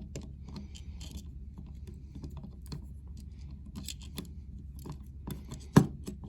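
Small metal clicks and rattles of a Leatherman bit adapter and bit extension being handled and fitted together, with one sharp, louder knock near the end.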